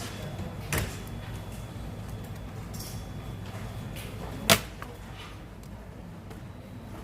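Two sharp clicks, about four seconds apart, the second much louder, over a low steady hum: small hard parts or a tool being handled during laptop disassembly.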